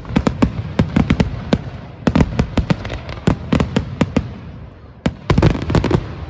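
Fireworks display: a rapid, irregular barrage of sharp bangs and crackling, several bangs a second, with a dense cluster of bangs near the end.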